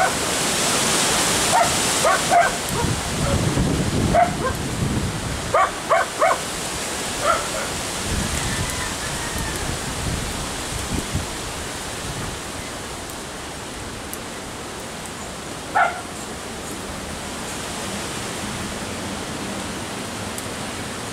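A dog barking: a run of short barks in the first seven or so seconds, then one more bark about sixteen seconds in, over a steady background hiss.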